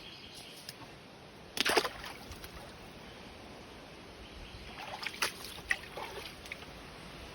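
Feet splashing through a shallow creek over the steady sound of running water: a loud splash about a second and a half in, then several smaller splashes around five to six and a half seconds in.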